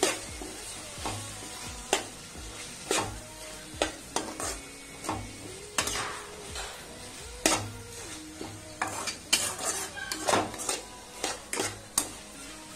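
A slotted steel spatula scrapes and taps against a pan, stirring chopped vegetables and spice powders as they sauté over a low flame with a light sizzle. The scrapes come irregularly and grow more frequent in the second half.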